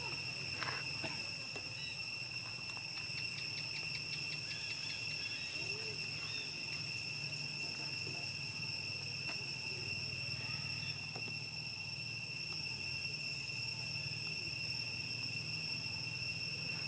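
Steady chorus of insects in a continuous high-pitched drone, with a low steady hum underneath.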